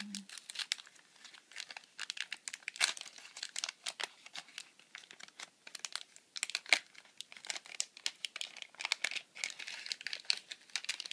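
Gift-wrapping paper crinkling and rustling in the hands as a wrapped soap is unwrapped, with irregular crackles and some tearing.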